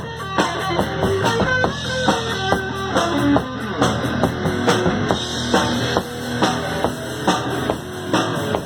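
Rock band playing an instrumental break: a single-note guitar melody over bass guitar and drum kit, the guitar line standing out most in the first half.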